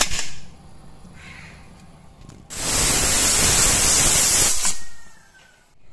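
Pressure cooker's weight clicks onto the steam vent, and about two and a half seconds in the cooker whistles: steam hisses out loudly under the weight valve for about two seconds, then dies away. This is the single whistle that tells the lentils inside are done.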